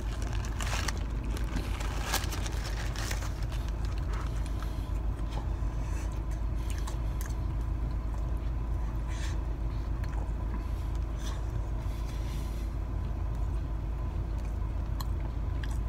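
Steady low rumble of a parked car's engine idling, heard from inside the cabin. Faint chewing and the crinkle of a paper sandwich wrapper in the first few seconds, with a few scattered clicks later.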